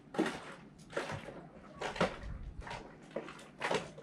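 Light knocks and taps, about eight of them at uneven intervals, over a quiet background.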